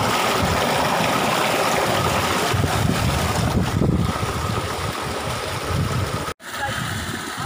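Water from an irrigation pump's outlet pipe gushing steadily into a brick tank, with wind on the microphone. The rush cuts off abruptly about six seconds in and comes back quieter.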